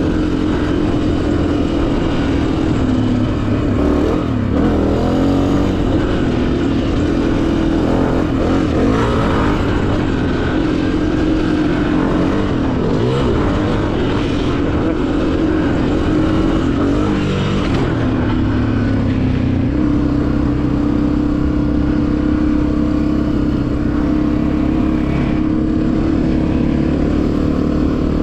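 Honda CRF250F trail bike's air-cooled single-cylinder four-stroke engine running while riding. Its pitch rises and falls with the throttle for the first two thirds, then holds steady.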